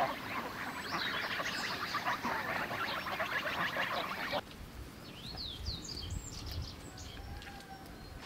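A flock of domestic geese calling on a pond in a dense chatter, which cuts off abruptly about four seconds in. After that come scattered high chirps of small songbirds.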